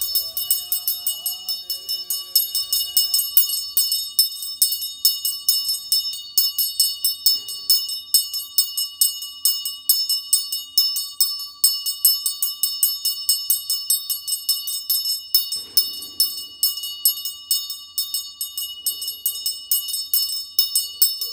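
Brass hand bell (ghanta) rung rapidly and without pause, several strokes a second, as lamps are waved in a Hindu aarti offering. A voice chants over it for the first few seconds.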